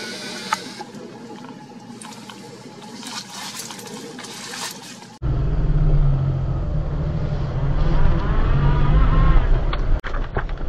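Daihatsu Atrai kei van's 660 cc turbo engine running as the van moves off, heard from inside the cabin, with the engine note rising a little a few seconds after it comes in. It cuts in abruptly about five seconds in, after a stretch of quieter outdoor sound with a few light clicks.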